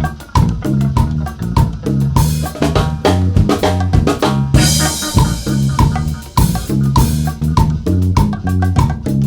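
Background music with a steady drum-kit beat, bass and guitar, with a cymbal crash swelling about halfway through.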